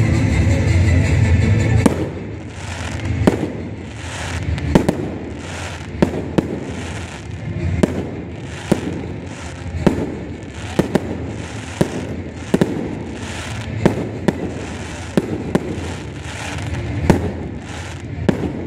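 Fireworks display. The first couple of seconds are a dense rumble of bursts. After that, aerial shells crack in a steady run, about one a second.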